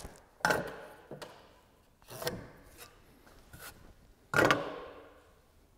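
Hand tools knocking against a wooden beam as a square line is marked on it: three separate knocks, about half a second, two seconds and four and a half seconds in, each dying away briefly, with faint rubbing between.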